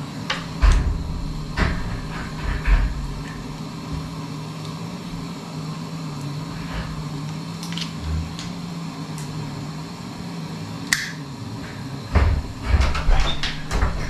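A plastic snack wrapper crinkling and clicking as it is handled and worked open, with scattered knocks on a wooden table and a busier run of clicks and thumps near the end. A steady low hum runs underneath.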